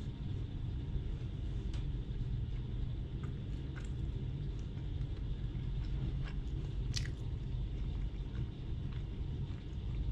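A person chewing soft bread, with faint scattered mouth clicks, over a steady low rumble.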